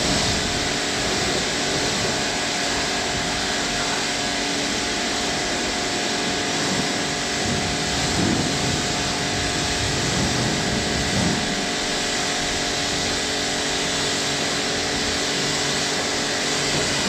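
Big Boi Washr Flo electric pressure washer running steadily as it rinses a car through a 25-degree nozzle. The motor and pump make a constant hum under the hiss of the water jet.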